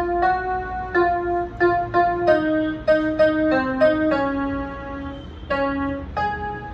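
Casio electronic keyboard on a piano-like voice playing a simple, slow melody one note at a time, with a couple of longer held notes midway through.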